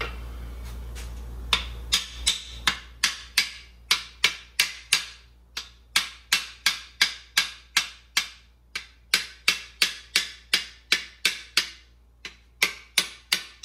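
Ball-peen hammer tapping the main bearing caps of an LS engine block, sharp light metallic blows about three a second with short pauses, starting a second and a half in. The caps are being tapped part way down so they sit aligned before their bolts are run in.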